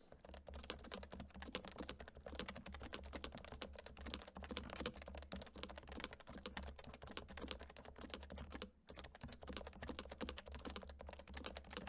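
Fast typing on a Leopold FC980C keyboard with Topre electro-capacitive rubber-dome switches: a dense run of keystrokes at about 121 words per minute in a typing speed test, with a brief pause about nine seconds in.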